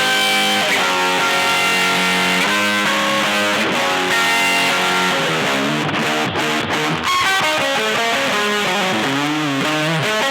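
Electric guitar played through an EarthQuaker Devices fuzz pedal: held, ringing chords changing every second or two, then a few seconds in the second half of bent single notes with wide vibrato.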